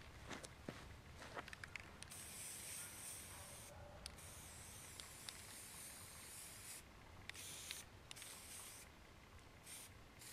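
Krylon aerosol spray paint hissing from the can in several bursts, the longest a few seconds, as a black base coat goes onto a deer skull. A few faint clicks come before the spraying starts about two seconds in.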